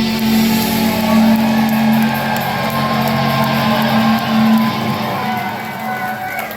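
Live black metal band's distorted electric guitars holding a final chord that rings on, then thins out and fades about two-thirds of the way through.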